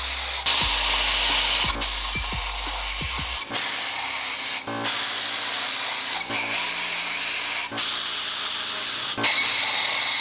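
Compressed air hissing from a blow gun into an engine block's head bolt holes, blowing out old thread sealer and water. The hiss breaks off briefly about every second and a half and starts again.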